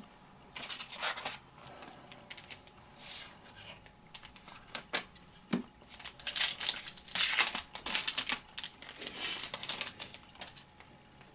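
Foil wrapper of a trading-card pack being torn open and crinkled, in a run of rustling bursts that grow loudest in the second half.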